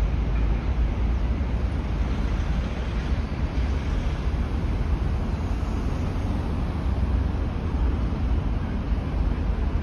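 Wind blowing on the microphone as a steady low rumble, over an even outdoor hiss of road traffic.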